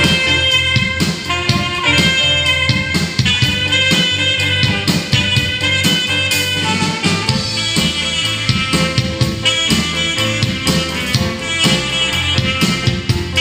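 Live band music: a saxophone plays the melody over drum kit, electric bass guitar and keyboards, with a steady beat.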